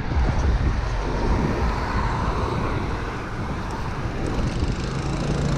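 Wind buffeting an action camera's microphone while riding a road bike through town traffic, a dense, gusting rumble with road and traffic noise beneath it. A steady low hum joins near the end.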